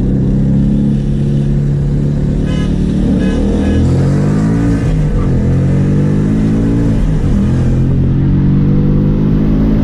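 Car engine revving, its pitch rising and falling a few times, most likely the 10th-gen Honda Civic Si's 1.5-litre turbocharged four-cylinder.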